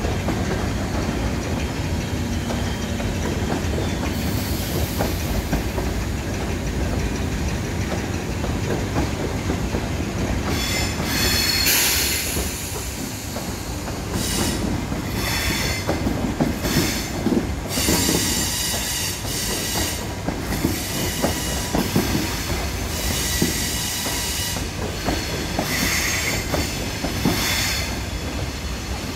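Double-deck passenger coaches rolling slowly into a station, wheels rumbling and knocking over the rails. From about a third of the way in, high-pitched brake squeal comes and goes as the train slows for its stop.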